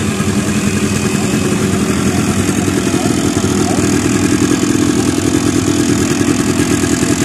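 Quad bike (ATV) engine idling: a steady, rapid low putter that grows a little louder about halfway through.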